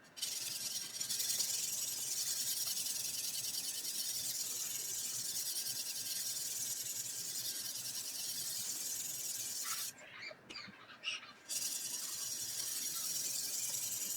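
Steel edge of a Shun Sora chef's knife being ground on an abrasive to repair chips: a steady, high-pitched rasping hiss. It stops for about a second and a half about ten seconds in, then starts again.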